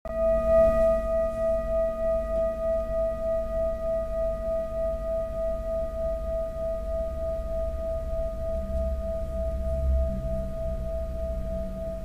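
Large metal singing bowl struck once and left ringing: one steady tone with fainter higher overtones, pulsing in a slow wobble as it gradually fades.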